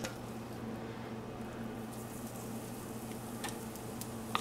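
A few faint clicks of a metal fork against a ceramic mixing bowl as pancake batter is scooped toward a hot pan, over a steady low hum and faint hiss.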